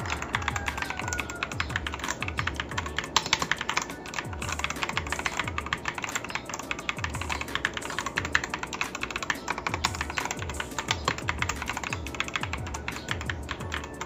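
Fast, continuous typing on a Zifriend ZA63 Pro 60% mechanical keyboard fitted with yellow switches: a dense run of keystroke clacks. Background music with a steady low beat plays underneath.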